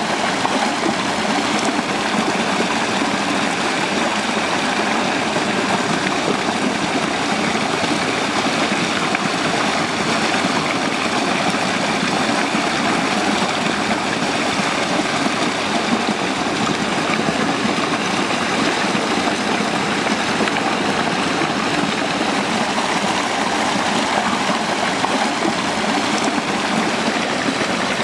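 Small waterfall and stream rushing steadily over rocks, an even, unbroken wash of water noise.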